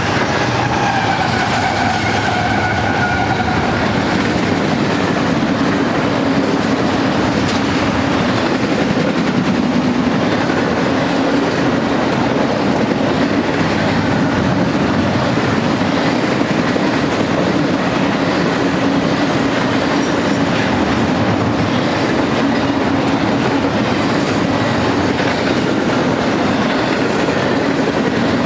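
Double-stack intermodal freight train's well cars rolling past, steel wheels on rail making a loud, steady rolling noise. A high squeal in the first few seconds fades out about four seconds in.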